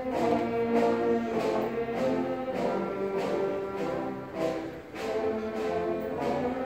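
Orchestral processional music led by brass, with slow, held chords.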